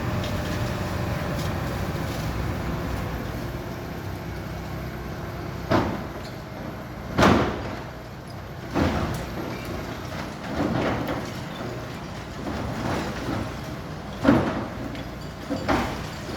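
A construction machine's engine runs steadily while a building is demolished. From about six seconds in, there are several loud crashes and knocks of the structure breaking apart.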